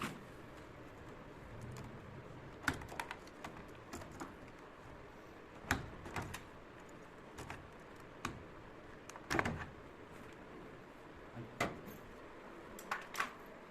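Hands working on a top-load washing machine's control panel and circuit board: scattered sharp clicks, taps and light knocks of plastic parts and tools being handled, about ten of them spread irregularly, over a faint steady background noise.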